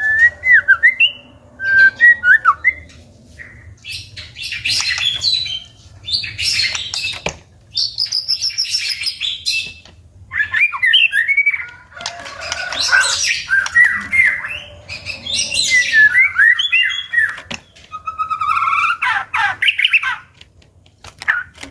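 White-rumped shama singing: bouts of varied phrases of clear gliding whistles, fast warbles and rougher notes, separated by short pauses, with a sharp click or two.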